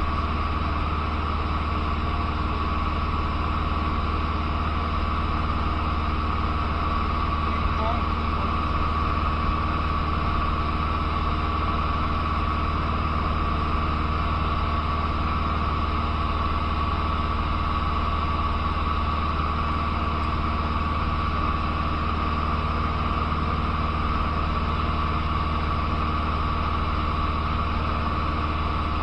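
Cessna 150's four-cylinder Continental O-200 engine and propeller droning steadily in cruise, heard inside the cabin, with a steady high tone over the low drone.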